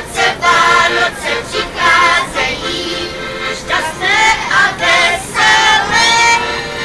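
Several voices singing together in short phrases.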